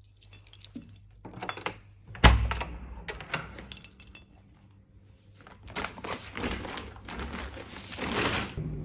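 Scattered knocks and handling noises, with one loud thump about two seconds in and a stretch of rustling near the end.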